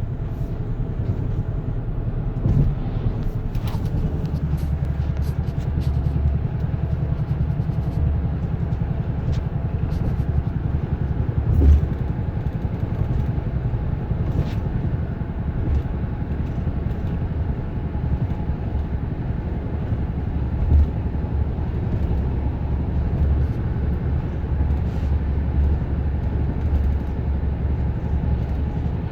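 A 2010 Honda Odyssey on the move: a steady low rumble with a fast pulsing thump from the rear, plus a few louder knocks. The dealer put the noise down to a seizing right rear brake caliper, its slide pins gummed with brake dust through torn boots.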